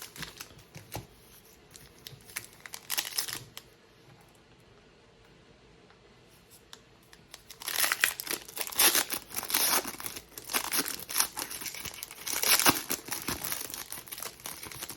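Trading card pack wrappers being torn open and crinkled: a few short rips in the first few seconds, a quieter pause, then a long run of dense crinkling and tearing from about eight seconds in.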